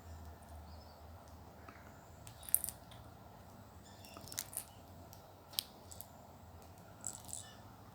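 A baby flying fox handling its baby toys: a handful of short, light clicks and rattles scattered over several seconds, the loudest about two and a half seconds in.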